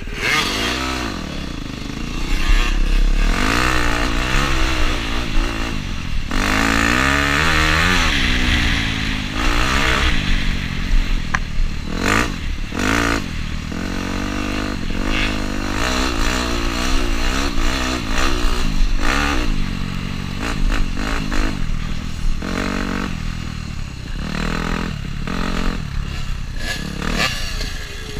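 Dirt bike engine revving up and down as it is ridden, its pitch climbing and dropping over and over with throttle changes and gear shifts, with wind rushing over the helmet-mounted microphone.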